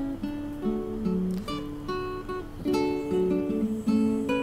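Background music: a plucked guitar playing a light melody of short notes, several a second.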